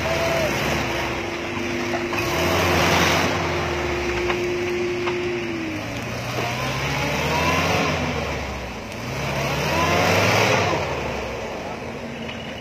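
Daihatsu Rocky 4x4's engine revving hard in three surges as it churns through deep mud, each surge carrying a rush of noise from the spinning mud-terrain tyres.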